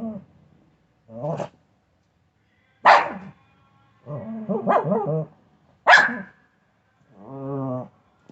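Small dog, a Shih Tzu, barking and growling in short bursts: five outbursts with pauses between, the two sharpest barks about three and six seconds in being the loudest.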